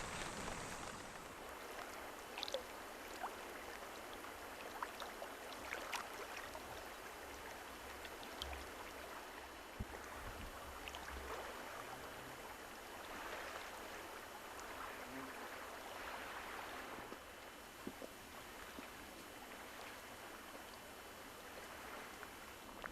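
Mountain river water flowing, a steady rushing hiss with scattered small splashes and ticks.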